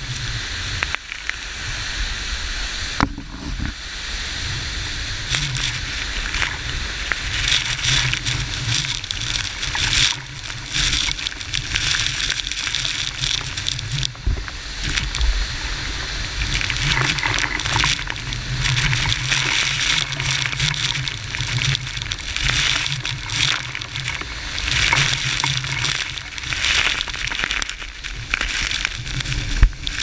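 Waterfall water rushing and splashing without a break, surging louder and softer, with a low rumble underneath.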